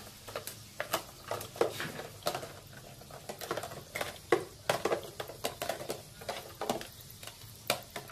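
Plastic toy dishes clattering and clicking as a capuchin monkey handles them in a toy play sink: a string of irregular light knocks.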